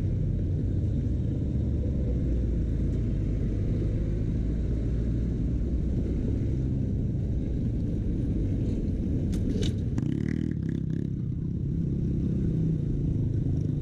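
Motorcycle engine running at low speed with road noise, steady throughout. There are a few short clacks a little past nine seconds in, and the engine note changes about ten seconds in.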